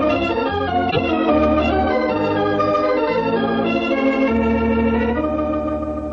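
Organ music bridge from an old-time radio drama: held chords that change about once a second over sustained low bass notes, the last chord held and fading slightly at the end.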